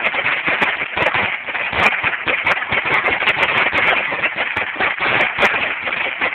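Dominator 16,000 firecracker strip going off in a rapid, continuous string of overlapping bangs, with no let-up.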